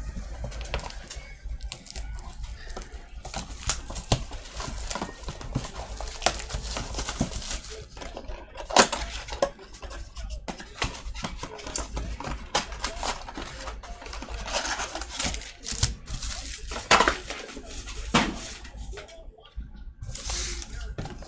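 Cardboard trading-card blaster boxes being torn open and handled by hand: tearing cardboard and crinkling plastic wrap, with many small clicks and taps and a few sharp louder snaps.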